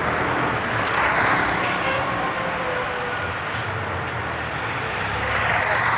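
Steady road-vehicle noise, swelling about a second in and again near the end.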